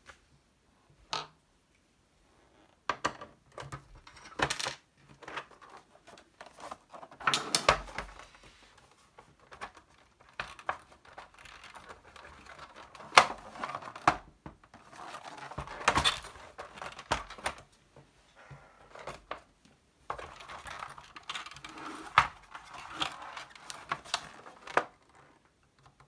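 Irregular clicks, clatters and small metallic clinks from the plastic case of a TRS-80 Model 1 being handled and worked apart by hand.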